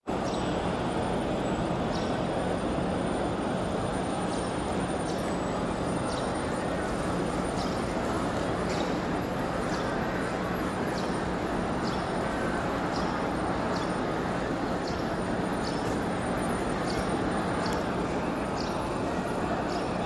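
Steady murmur of a very large crowd of pilgrims, thousands of voices blended into one continuous wash, with a low steady hum underneath.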